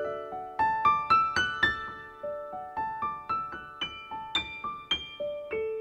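Background piano music: single notes struck one after another, a few a second, each ringing and fading.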